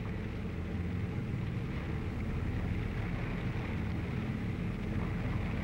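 Landing craft's engine running steadily under way, a low even drone with wind and water noise over it.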